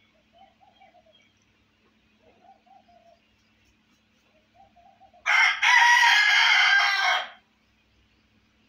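A white rooster gives a few soft, low clucks, then crows once: a loud cock-a-doodle-doo of about two seconds, starting about five seconds in.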